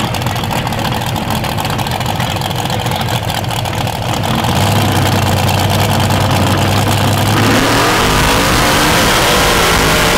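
Lifted mud truck engines running hard and revving. About eight seconds in the sound gets louder and the revving note wavers up and down as a mega truck spins its tyres in a smoky burnout.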